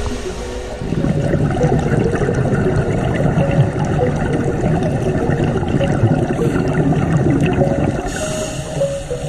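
Scuba regulator exhaust bubbles gurgling and crackling underwater, starting about a second in and fading near the end, with faint background music under them.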